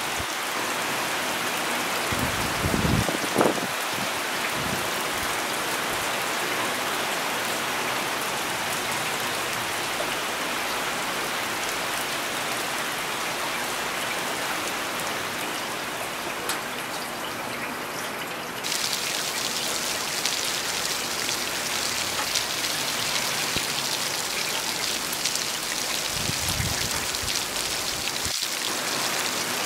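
Steady rain falling, an even hiss of drops on surfaces. Brief low rumbles come about three seconds in and again near the end, and a little past halfway the hiss turns abruptly brighter.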